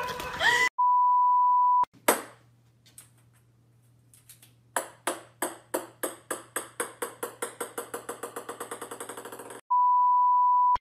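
A steady high test-tone beep lasting about a second. Then a ping-pong ball bouncing on a wooden floor: one sharp knock, then a run of bounces that come faster and faster and fainter until they stop. The same beep sounds again at the end.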